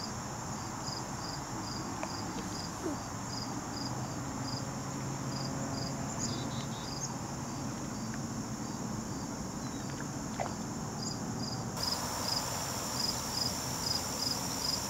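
Crickets chirping: a steady high trill with a regular pulse about twice a second, over a faint low background hum.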